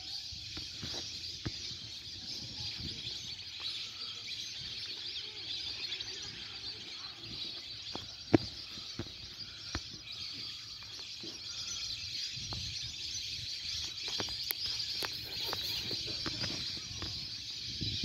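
Wetland ambience: a steady high-pitched hiss of outdoor chorus with scattered short bird calls and chirps, and one sharp click about eight seconds in.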